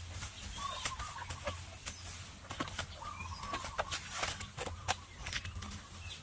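Irregular sharp taps and clicks, with short bird calls between them.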